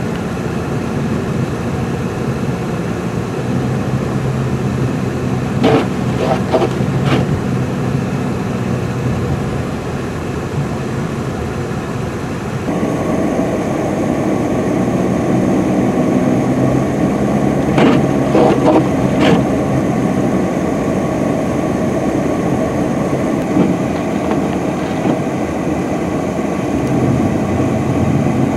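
UPS delivery truck's engine running with a steady drone as its tyres spin and churn through deep snow, over wind noise; the noise grows louder about twelve seconds in. Two quick runs of three sharp knocks cut through, one about six seconds in and one about eighteen seconds in.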